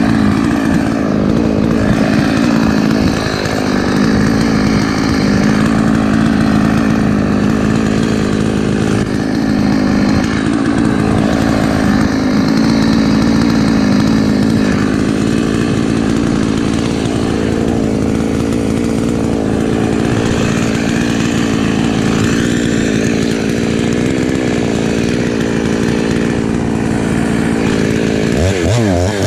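Husqvarna 254 two-stroke chainsaw running steadily at high revs. Near the end the revs drop and rise again.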